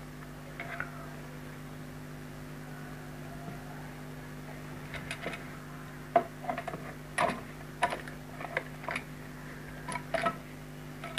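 Plastic cover of a round extension box clicking and knocking against its base as it is pressed and turned into place by hand, in irregular taps from about halfway through. A steady low hum sits underneath.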